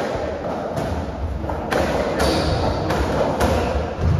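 Racketball rally on a squash court: a racketball being struck by rackets and hitting the court walls, about five sharp knocks roughly a second apart.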